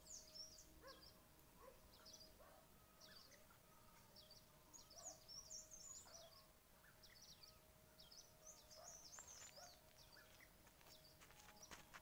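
Faint morning birdsong: many small birds giving short, high chirps and twitters, with a faint steady tone underneath. A few sharp clicks come near the end.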